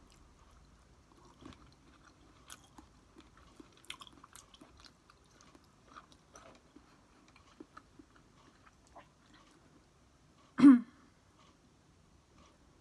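Close-up chewing and biting of food, with small wet mouth clicks and light crunches. About ten and a half seconds in, one short loud vocal noise from the eater, falling in pitch.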